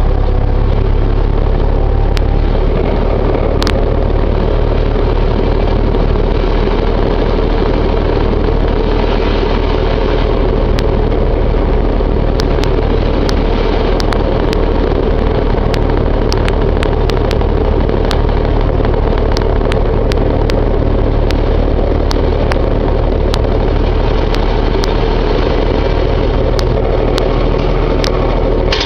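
Berns Air King three-blade box fan running with a steady motor hum and rush of air, with frequent sharp ticks and rattles as the fan shakes; the owner takes the shaking for off-balance blades.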